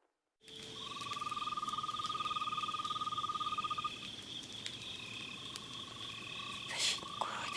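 Frogs and insects calling: a long even trill for about three seconds, then weaker, over a steady high buzz and short chirps repeating about once a second. A brief louder noise comes near the end.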